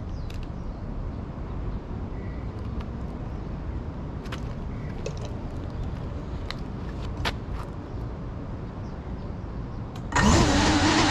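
A steady low outdoor rumble with a few faint clicks, then about ten seconds in the Cinelog 35 cinewhoop's motors and propellers spin up suddenly into a loud whine that rises in pitch as the drone lifts off.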